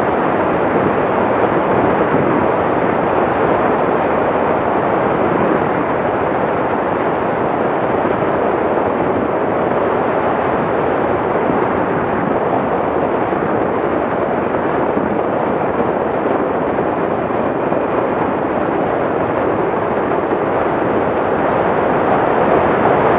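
Wind buffeting the microphone of a motorcycle-mounted action camera at about 60 to 75 km/h: a steady, loud rush of noise with no clear engine note, swelling slightly near the end.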